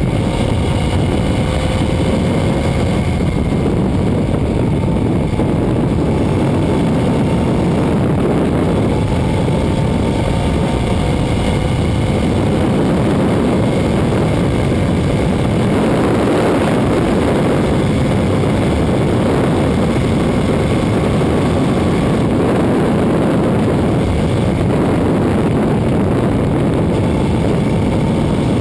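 Suzuki SV650's V-twin engine running steadily at road speed, heard under loud wind and tyre rush at a camera mounted beside the rear wheel.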